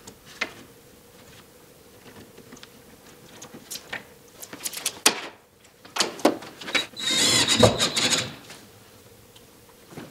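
Handling noises: scattered light taps and knocks of a wooden lath against a chipboard wall, then from about six seconds in a couple of seconds of loud scraping and rubbing as an electricity meter cabinet is handled.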